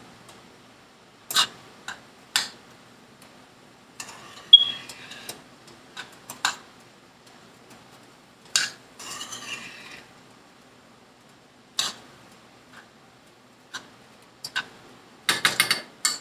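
Scattered clinks and knocks of kitchen utensils and dishes being handled, with short scraping stretches about four and nine seconds in. The loudest is a sharp clink that rings briefly about four and a half seconds in, and a quick run of clicks comes near the end.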